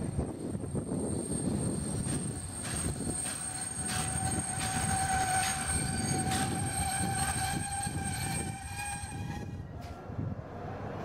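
Passenger coaches of a train hauled by a class 242 electric locomotive rolling past, their wheels rumbling and clicking over rail joints. A steady high squeal sets in about four seconds in and stops shortly before the end.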